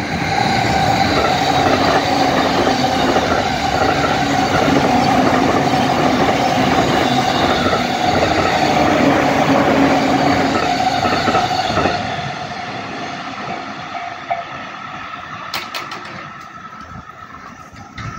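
A train passing over a level crossing, with wheels clattering and a steady whine, fades out about twelve seconds in. The crossing's warning bell keeps ringing, more faintly, and stops near the end.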